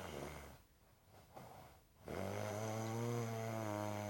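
A person snoring: the low end of one snore, a short pause, then a long, steady, low-pitched snore starting about two seconds in.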